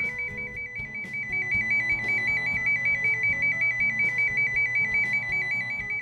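Cable tracing probe's speaker sounding the toner's tracing tone: a high, steady warble that switches rapidly back and forth between two close pitches, the sign that the probe has picked up the tone on the cable.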